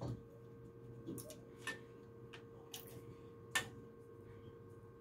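A few faint, sharp clicks and taps, about one a second, from a screwdriver and a GFCI receptacle being handled while the load-terminal screws are freed, over a faint steady hum.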